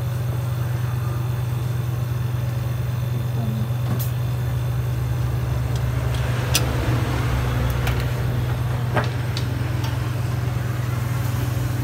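Showcase refrigerator's compressor running with a steady low hum while the repaired system cools down after a new capillary tube was fitted. A few sharp clicks or taps sound about four, six and a half and nine seconds in.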